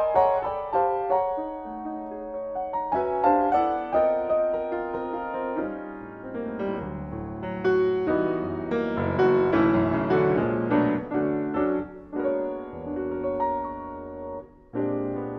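Solo jazz piano on a Yamaha grand, played live: chords and melodic runs, with deep bass notes coming in about halfway. The playing dips briefly near the end before a new chord is struck.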